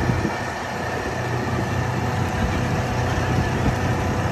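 Engine of an open jeep driving over beach sand, heard from on board: a steady low drone under a haze of wind and tyre noise.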